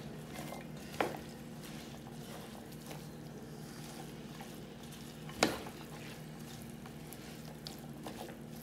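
Wooden spatula stirring carrot and chayote strips for chow mein in a large pot, over a faint sizzle of the vegetables frying, with two sharp clacks of the spatula against the pot, about a second in and again after about five seconds.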